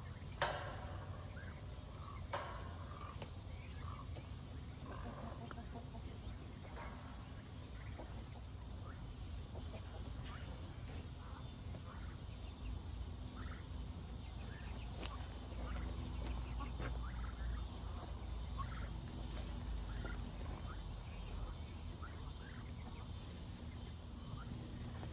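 Chickens clucking on and off throughout. Near the start come two sharp clanks of the coop's steel wire panels being handled; the first is the loudest sound in the stretch.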